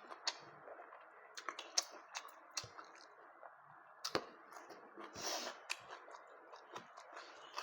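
Close-up eating sounds: irregular sharp wet clicks and smacks of chewing, with a brief hiss about five seconds in.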